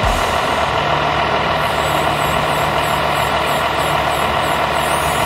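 Radio-controlled scale model fire truck's sound module playing a steady truck diesel engine idle.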